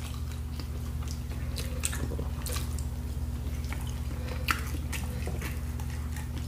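Eating sounds: wet chewing and squishing, with scattered sharp clicks as cooked crab legs are pulled apart by hand. The strongest click comes about four and a half seconds in, and a steady low hum lies underneath.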